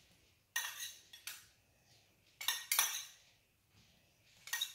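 Kitchen utensils clinking and scraping against dishes and a cooking pot in a few short clattery bouts: about half a second in, briefly around one second, a longer run around two and a half to three seconds, and once more near the end.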